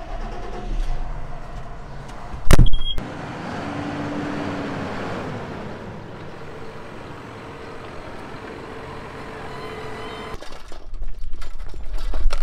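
John Deere loader tractor's diesel engine running as the tractor drives along a gravel yard, with one loud knock about two and a half seconds in. Near the end the engine sound cuts away to footsteps and small clicks and knocks of a hose being handled.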